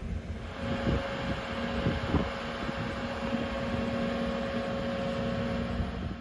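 Marine travel lift running as it carries a sailing yacht in its slings: a steady machine hum with a few clunks in the first couple of seconds.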